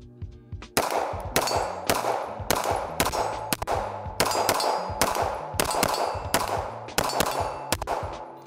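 A CZ Shadow 2 Compact 9mm pistol firing a steady string of more than a dozen shots, about two a second, starting about a second in and stopping near the end, each shot trailing off with a short ring.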